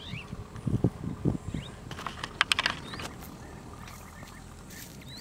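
Short bird chirps several times over a low steady rumble, with a cluster of sharp clicks or knocks about two to three seconds in.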